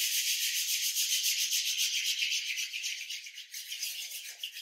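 Palms being rubbed briskly together: a fast, even run of dry rubbing strokes that grows fainter near the end.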